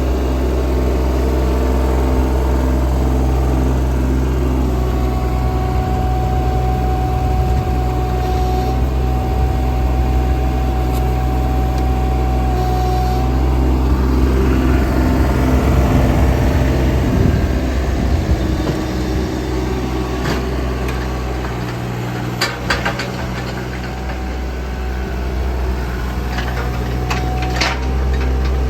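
JCB 18Z-1 mini excavator's diesel engine running steadily, with a thin steady whine over it for several seconds early on and a louder, busier stretch in the middle. Several sharp clicks and clanks come in the last third.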